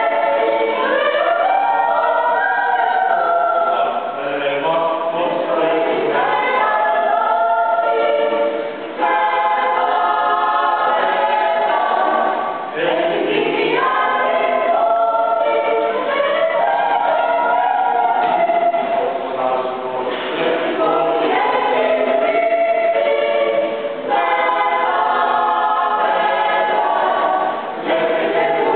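A choir singing, many voices together, with brief pauses between phrases.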